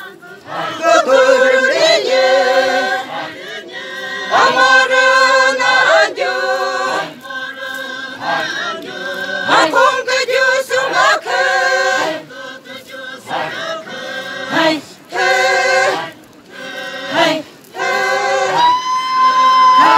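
Group of dancers singing together in short phrases with brief pauses between them. Near the end, one voice holds a long high call that falls away in pitch.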